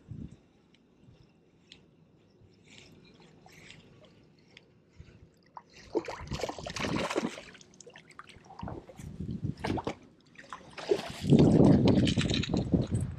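Water splashing as a hooked trout is played to the bank and scooped into a landing net. It is quiet for the first few seconds, splashes about six seconds in, and is heaviest near the end.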